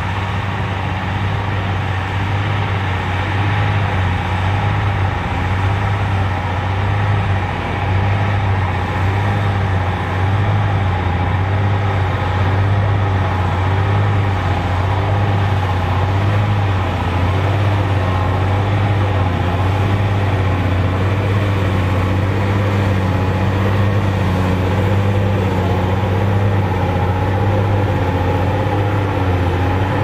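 Large tractor diesel engine running steadily at constant speed, with a slight regular wavering in its note.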